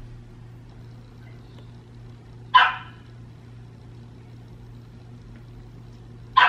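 Dog barking twice, short sharp barks about four seconds apart, the second near the end.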